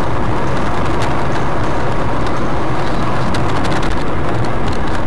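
Steady road and engine noise inside a car moving at speed on wet asphalt, with scattered light clicks.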